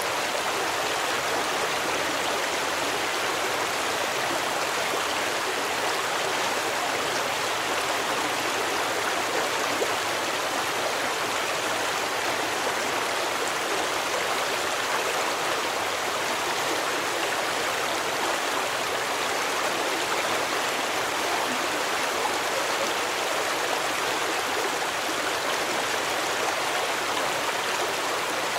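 A stream flowing, a steady, even rush of running water.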